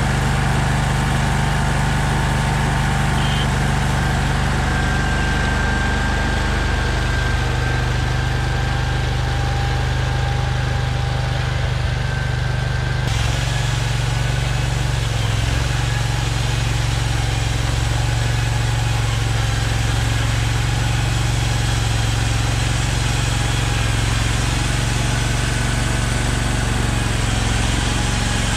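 Small gasoline engine of a Hud-Son Oscar 336 portable bandsaw sawmill running steadily, with a slight change in its tone about halfway through.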